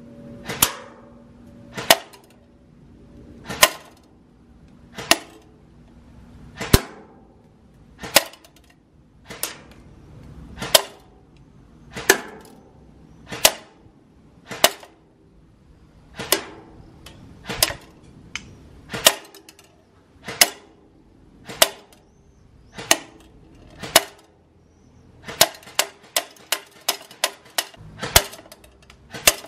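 Lancer Tactical M4 CQBR airsoft electric gun, with a V2 gearbox, firing single shots at a steady pace of about one every second and a half. Near the end comes a quicker run of about eight shots.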